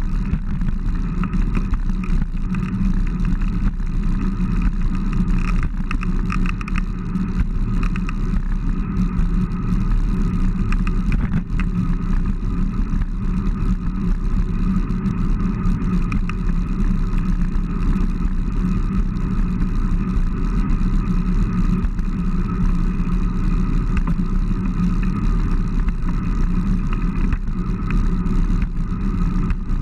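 Steady wind rush and road rumble on the microphone of a bicycle-mounted action camera while riding at speed, unbroken throughout.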